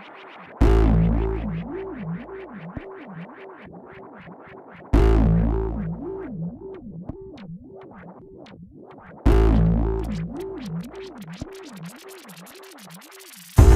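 Electronic background music: a synthesizer line wobbling up and down in pitch, with a heavy bass hit about every four seconds that slowly fades.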